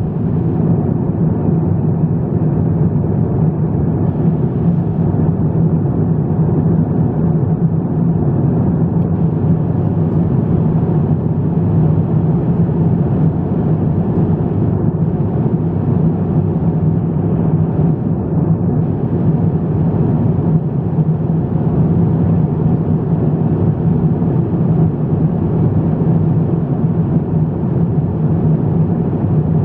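Airliner cabin noise in cruise flight: the steady rumble of jet engines and rushing air heard from inside the cabin, with a constant low hum and no change throughout.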